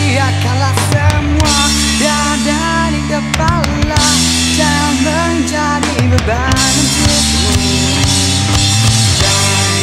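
Indie rock song played by a full band: drum kit with bass drum keeping a driving beat under a loud bass line, with bending lead lines above, briefly breaking and returning a few times.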